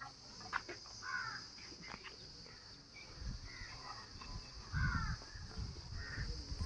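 Birds calling with short, harsh calls about five times, over a steady high insect drone, with a couple of low thuds around the middle.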